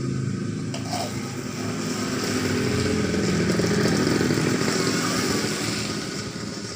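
A vehicle engine passing by, getting louder to a peak about four seconds in, then fading.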